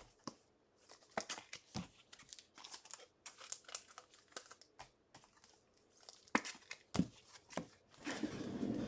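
Crinkling of plastic trading-card pack wrappers as cards are handled: many short, sharp crackles, and about eight seconds in a longer, denser tearing rustle.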